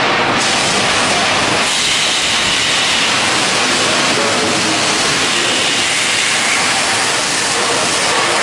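Galvanizing line machinery running, a steady loud hissing din.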